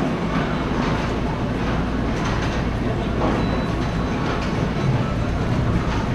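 Bowling alley din: a steady rumble of bowling balls rolling down the lanes, with a few faint clatters and voices in the background.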